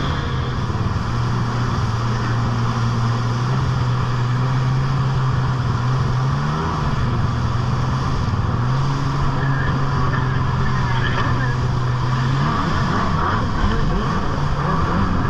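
Kawasaki stand-up jet ski's engine running at speed, a steady drone that rises briefly in pitch about six and a half seconds in and turns uneven in the last few seconds, over a rush of wind and water spray.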